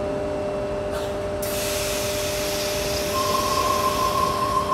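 Tangara electric train pulling out of an underground platform. About a second and a half in, a hiss of air starts over a constant two-tone hum. About three seconds in, a steady whine sets in as the train begins to move.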